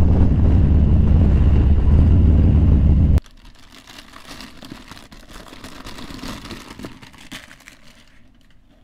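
Motorcycle engine running steadily as the bike rides, a loud low rumble that cuts off abruptly about three seconds in, leaving only faint quiet background.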